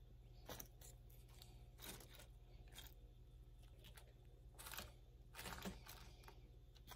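Near silence with a few faint, short crackles and rustles as pork rinds are pressed onto a pile of nachos by hand, over a low steady hum.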